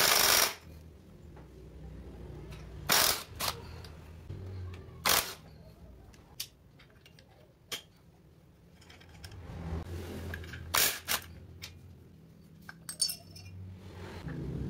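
A cordless impact wrench rattles briefly on the motorcycle's clutch fastenings at the start, with a few more short loud strokes after it. Later come metallic clinks and scrapes as the clutch parts of a Kawasaki Ninja RR two-stroke engine are handled and the pressure plate is lifted off.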